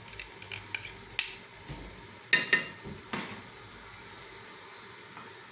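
A spoon knocking against the rim of an aluminium pressure-cooker pot as tomato is scraped off it into the pan: a few light clicks, then two sharp knocks and a third a moment later. Under it is a faint steady sizzle of onions, meat and spices cooking in oil.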